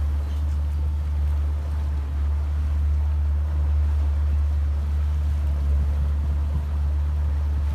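Boat under way: a steady low drone with the wash of water and wind noise over it, unchanging throughout.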